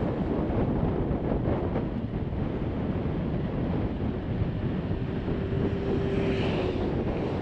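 Wind buffeting the microphone on a moving motorcycle, with the bike's engine running underneath as a steady rumble.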